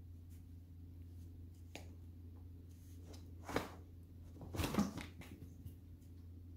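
A cat scrambling on the floor and brushing the fabric play tunnel: a short scuffle about three and a half seconds in and a longer rustling scuffle about a second later, over a low steady hum.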